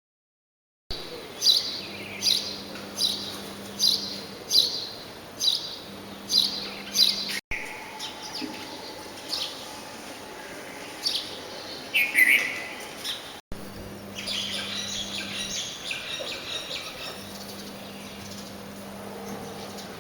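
Small birds calling: a regular run of short, high chirps at a little more than one a second, then scattered single calls, and a denser twittering of several birds near the end. The sound drops out abruptly twice.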